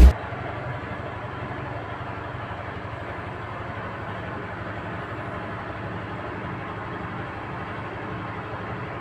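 Steady background machinery hum with a low drone, unchanging throughout.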